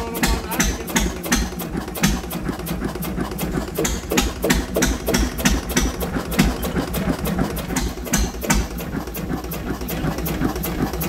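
Old hopper-cooled stationary engine of about 5000 cc running slowly, each firing stroke a sharp beat at an even rate of about three a second.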